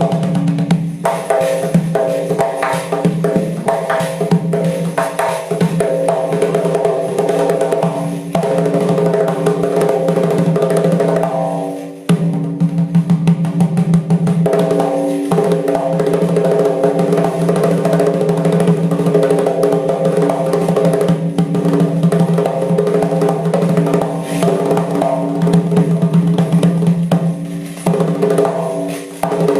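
Doira, the Uzbek frame drum, played in fast, dense strokes and rolls over a steady ringing drum tone. The playing eases briefly about twelve seconds in, then comes back with strong strokes.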